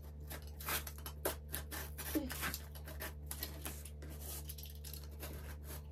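Utility knife cutting through stiff cardboard around a circle: a run of short, irregular scratching strokes.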